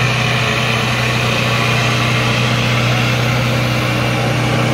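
Tractor diesel engines, among them a Mahindra Arjun's, running hard and steady under full load as two tractors pull against each other; a continuous, unchanging drone.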